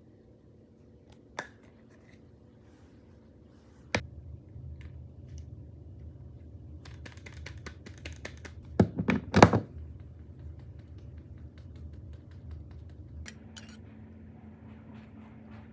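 Clicks, knocks and light handling noises of small objects, loudest in a quick cluster about nine seconds in, over a low steady hum that starts with a click about four seconds in and stops about thirteen seconds in.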